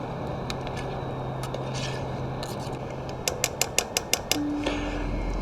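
Metal spoon scraping around a cooking pot while stirring, then a quick run of about eight sharp clinks against the pot a little past halfway.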